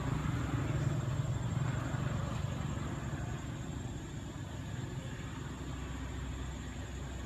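A motor vehicle's engine running with a low hum that fades away over the first few seconds.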